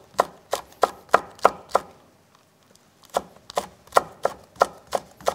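Chef's knife slicing green and red chili peppers on a wooden cutting board: even knife strikes about three a second, with a pause of about a second midway.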